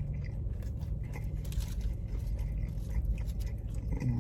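Close-up chewing and crunching of fried seafood, with irregular crisp crackles from the breading, over a steady low hum.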